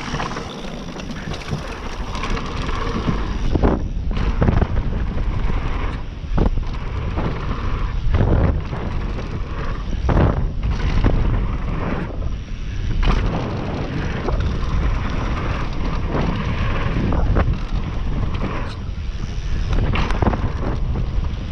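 Specialized Demo downhill mountain bike ridden fast down a dirt trail: tyres rolling and crunching over dirt, the bike rattling and knocking repeatedly over bumps and landings, under a heavy rush of wind on the camera microphone.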